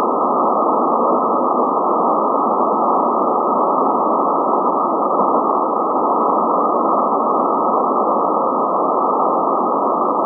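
Shortwave receiver's band noise on 40 metres: a steady, dull hiss of static through the narrow SSB audio filter, with no station transmitting on the frequency.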